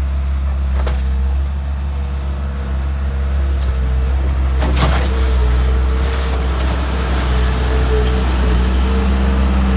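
Case 445 skid steer loader's diesel engine running steadily under load, with a faint steady whine above it. A single sharp knock comes about five seconds in.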